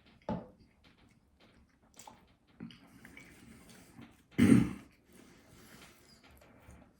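Mouth and throat noises of a person eating very hot spicy nuggets against the clock. There is a short loud burst just after the start and a louder one about four and a half seconds in, with faint smacking and clicks between.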